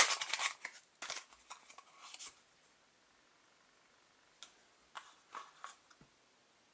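Football stickers being flicked through by hand: scattered short, crisp papery clicks and rustles, a few in the first two seconds and a few more after a quiet stretch.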